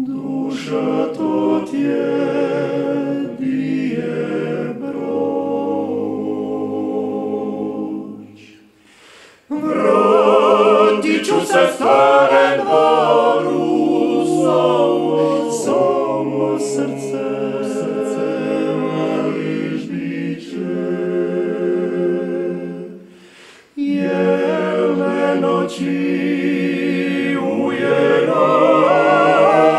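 Male klapa ensemble singing a cappella in close multi-part harmony, in the traditional Dalmatian style. The phrases break off briefly twice, about a third of the way in and again about three quarters through, and each time the voices come back louder.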